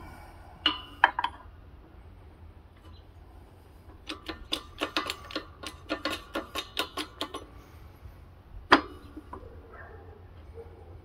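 Light metal-on-metal clicking and tapping as a bearing is pressed into a scooter transmission case on a shop press: two ringing clinks, then a quick run of about fifteen light taps at roughly four a second, and one sharper click near the end.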